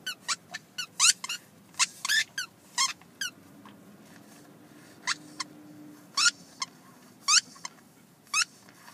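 Squeaky tennis ball being chewed and squeezed by a golden retriever: a quick run of short squeaks, each rising sharply in pitch. They pause for a moment around the middle and then go on, more spaced out.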